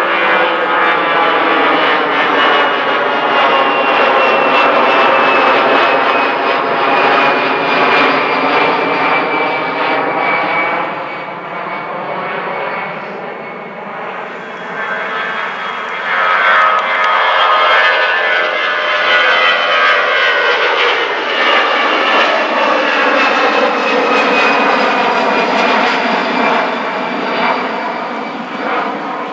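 Jet airliners climbing out after takeoff: loud engine noise with several tones slowly sliding in pitch as the aircraft passes overhead. It eases off about twelve seconds in, then a second, similar pass swells up a few seconds later.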